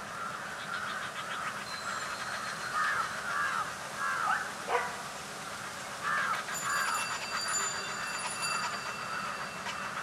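Birds calling: a run of wavering, chattering calls, loudest around three to four seconds in and again just after six seconds. A few thin, high, steady tones sound over them in the second half.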